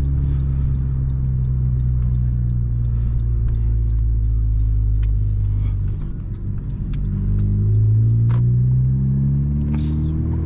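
Honda Civic Si's turbocharged 1.5-litre four-cylinder engine running steadily while driving. It eases off about six seconds in, then climbs in pitch as the car accelerates.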